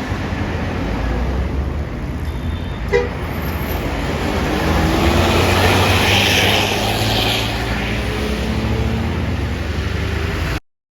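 Large bus engine running with a steady low rumble amid road traffic, with a horn tooting faintly around the middle and a rush of hiss at the same time. The sound cuts off suddenly near the end.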